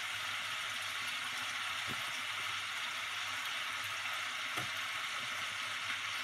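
Pork spare ribs sizzling in a frying pan: a steady hiss with a few faint ticks.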